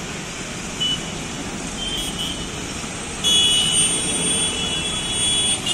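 Steady street traffic noise from a busy road junction. A short high beep comes about a second in, and a long, steady, high-pitched tone sounds from a little past three seconds until near the end.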